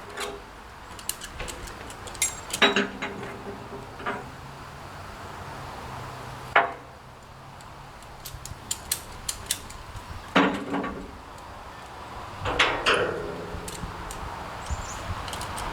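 Metal parts clanking and knocking together in irregular, separate strikes, several of them ringing briefly, as steel pieces or tools are handled.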